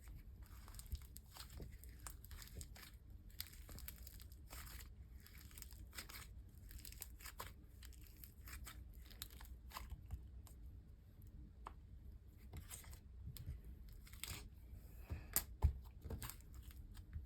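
Fluffy slime being squished and stretched by hand, making a steady run of soft, sticky crackles and small pops, with a few louder pops near the end.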